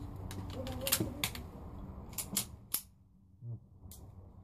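Sharp mechanical clicks and clacks of a Ruger LCP II .22 LR pocket pistol being handled: about half a dozen separate clicks at uneven intervals, none of them a shot.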